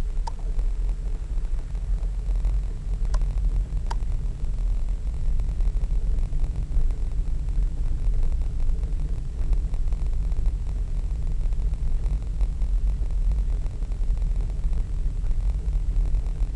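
Steady low rumble of a car driving along, heard from inside the cabin: road and engine noise. A few faint ticks come in the first four seconds.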